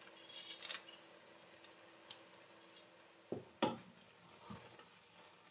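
Wooden spoon stirring grated carrots in a steel pot: soft rustling and scraping, then a few knocks of the spoon against the pot a little past three seconds in, the second one the loudest. A faint steady hum runs under it and stops just before the knocks.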